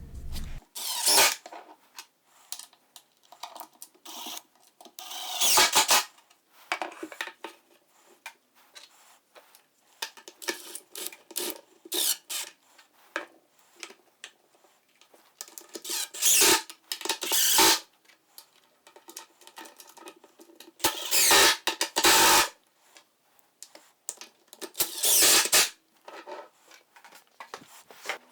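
Hand work on hardware while a caster is lined up on a plywood cabinet: intermittent rubbing and scraping, broken by several short, louder rasping bursts.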